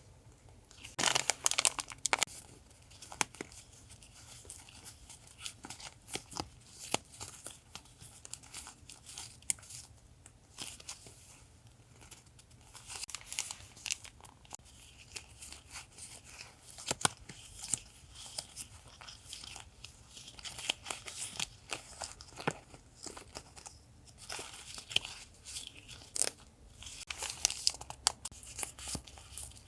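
Paper and sticker packaging being handled: crinkling, rustling and tearing in irregular bursts, with small sharp taps and clicks between them.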